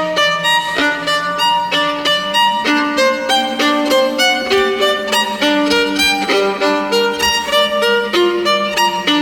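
Solo violin playing a fast passage of short bowed notes over a sustained low note.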